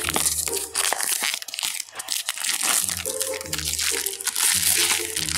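Clear plastic bag crinkling and rustling as it is pulled and peeled off a cardboard box, with many small irregular crackles.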